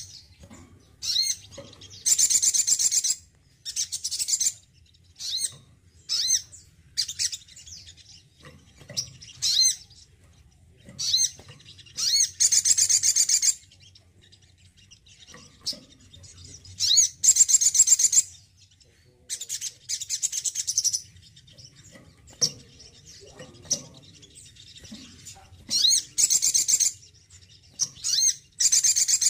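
Male olive-backed sunbird (sogon) singing. Bursts of short, high chirps alternate with fast, high-pitched trills of about a second each, repeated every few seconds.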